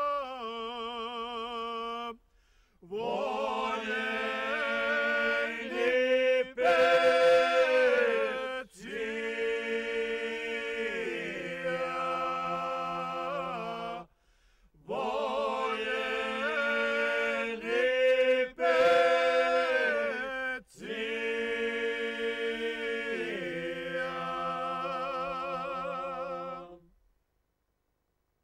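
Voices singing a cappella in several parts: a slow song of long held notes with vibrato, the second long phrase repeating the first. The singing ends shortly before the end.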